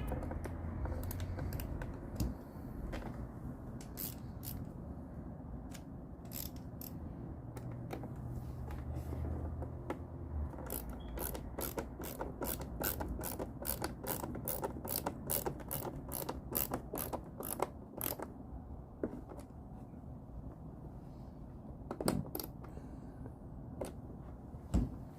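A ratcheting hand tool clicking as a screw is driven into the motorcycle's headlight mount. The clicks come in short runs, settling into a steady three or so a second for several seconds, with a low hum underneath that stops partway through.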